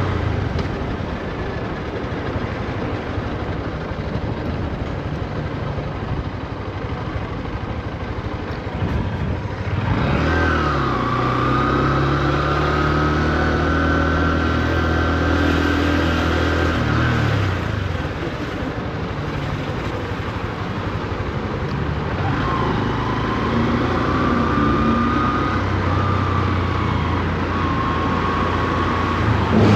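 Honda CB125F's single-cylinder engine running at low revs while riding, with wind rush over the microphone. Its note picks up and rises in pitch about a third of the way in and again near the end, as the bike pulls away and accelerates gently while the new engine is being run in.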